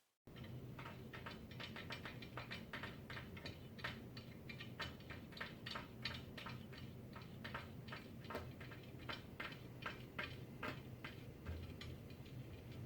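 Rapid, irregular light clicking, several clicks a second, over a faint steady low hum.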